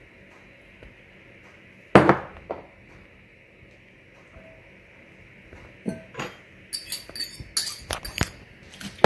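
Kitchenware clinking: a fork and small ceramic ramekins knocking against a glass mixing bowl as diced onion and green pepper are tipped and scraped in. There is one louder knock about two seconds in, then a quick run of clinks over the last few seconds.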